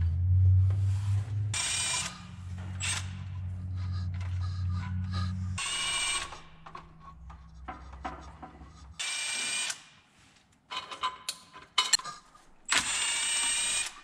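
Cordless power tool with a 14 mm socket spinning out the water pump bolts in four short whirring bursts, the last the longest. Sharp metal clicks come between the last two bursts, and a low steady hum runs under the first several seconds.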